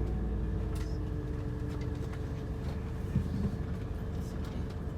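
Intercity bus engine running with a steady low rumble and hum.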